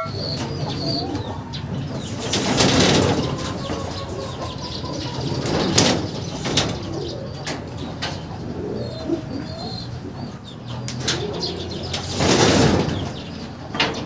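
Racing pigeons flapping their wings in several short bursts as a bird is caught in the loft, with pigeons cooing.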